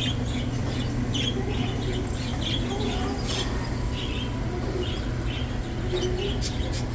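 Small caged pet-store birds chirping, many short high chirps a few times a second, over a steady low hum.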